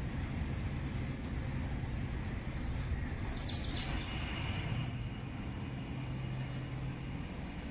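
Low steady hum of an idling engine over outdoor rumble, with a bird chirping briefly about three and a half seconds in.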